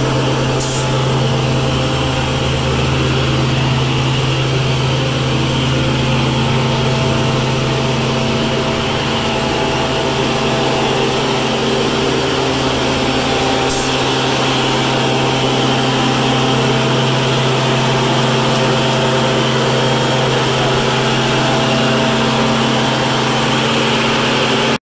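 Vector VecLoader vacuum loader's engine and belt-driven blower running steadily at a constant speed, with a deep steady hum.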